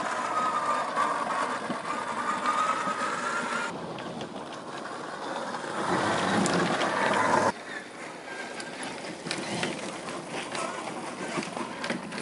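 1/10-scale RC crawler on an Element Enduro Trailwalker chassis driving, its electric motor and gears whining, with tyres crunching over gravel, twigs and pine litter. The sound changes abruptly twice, at shot changes: a louder burst of motor whine in the middle, then mostly the crackle of tyres on stones and twigs near the end.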